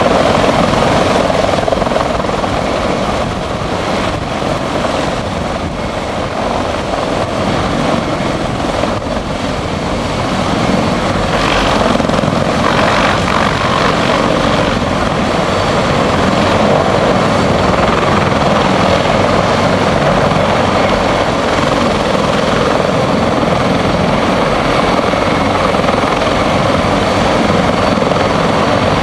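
Sikorsky CH-53 heavy-lift helicopter running close by as it sets down and sits on the grass with its rotors turning: a loud, steady rotor and turbine drone that eases a little a few seconds in, then builds back and holds.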